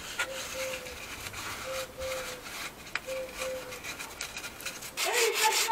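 Wire brush scrubbing rust on a car's steel underbody and differential housing: repeated rough, scratchy strokes.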